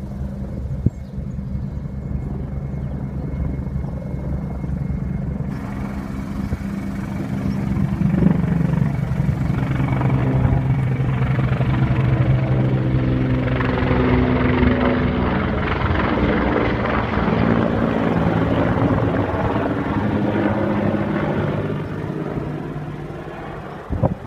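Helicopter flying over, a steady rotor and engine sound that grows louder about eight seconds in and fades near the end. A short knock sounds just before the end.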